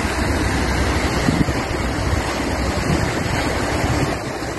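Steady rushing of floodwater, with wind buffeting the microphone.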